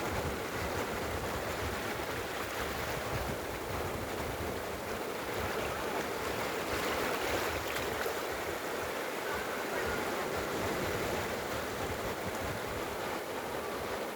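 Sea waves washing onto a beach: a steady rush of surf with gentle swells in loudness.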